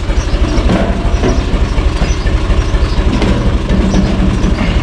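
UTB U445 tractor's four-cylinder diesel engine idling, with an even, rhythmic beat.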